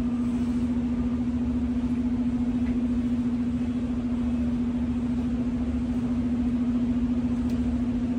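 An engine running steadily: one even droning hum over a low rumble, unchanging throughout.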